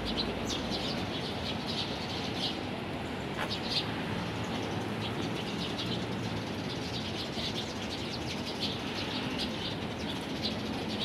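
A flock of Eurasian tree sparrows chirping continually, with many short, high, overlapping chirps, over a steady low background hum.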